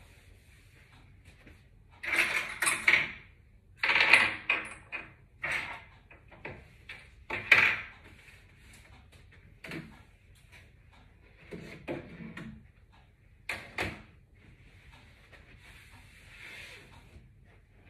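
Cleaning sounds at a wooden TV cabinet: a series of short rubbing, wiping and knocking noises as a gloved hand works a cloth over the shelves and moves the things on them, loudest in the first half.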